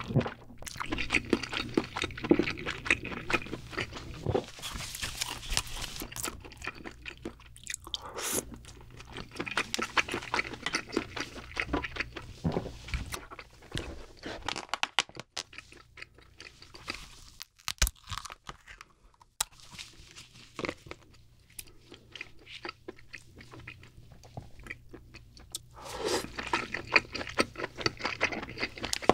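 Close-miked eating sounds of cooked king crab: wet chewing and biting of the crab meat mixed with crackling and sharp clicks as the shell and legs are pulled apart and handled. A quieter stretch in the middle holds only scattered clicks.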